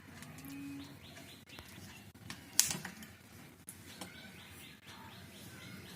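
Small birds chirping in quick, rapid runs of short notes, twice. A single sharp knock, the loudest sound, comes in between.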